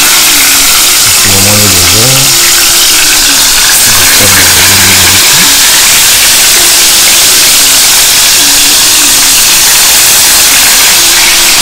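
Whole fish frying in hot oil in a pan, giving a loud, steady sizzle. Faint background music plays underneath.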